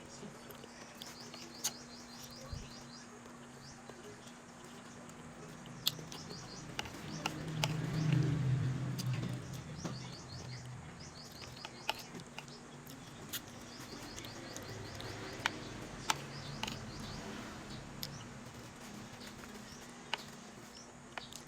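A bird chirping in quick runs of high notes, three or four times, over scattered sharp clicks from eating. A low steady hum underneath swells briefly about a third of the way in.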